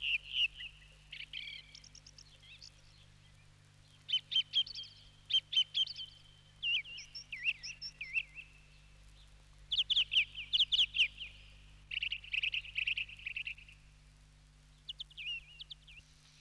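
Songbird singing: short phrases of quick, high, trilled notes, repeated with brief pauses between them, over a faint steady low hum.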